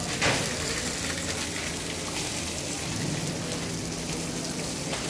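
Kokoreç sizzling as it cooks, a steady hiss, with one sharp knock about a quarter second in.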